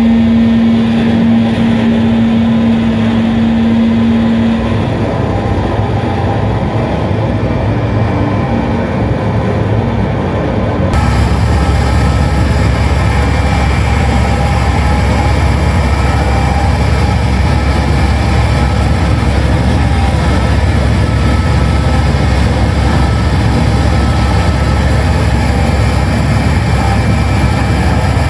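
Live harsh noise played from electronics through a PA: a loud, dense wall of distorted noise, with a steady low tone held through the first few seconds. About eleven seconds in it abruptly turns fuller and brighter, with heavier bass.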